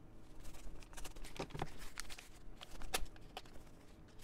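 A knife blade slitting the tape on a gift-wrapped box: faint paper rustling and crinkling, broken by several sharp little clicks.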